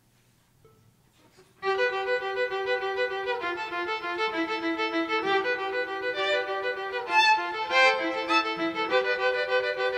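Solo violin bowed, coming in suddenly about one and a half seconds in after near silence, playing long held notes, often two or more pitches at once.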